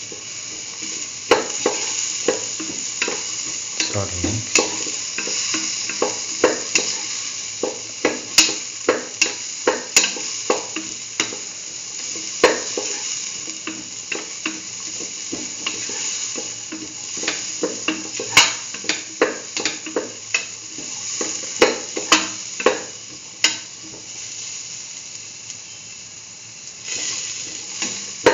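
Diced chayote sautéing in a metal pan: a steady sizzle, with frequent sharp clicks and scrapes as a spatula stirs the pieces against the pan.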